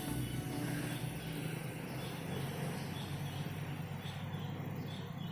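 Faint outdoor ambience: a steady background hiss with small high chirps repeating about twice a second in the second half, from insects or birds.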